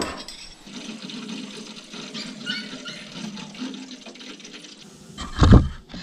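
Water rushing and hissing through the central-heating pipework as the radiator system is refilled from the mains, with a single loud thump near the end.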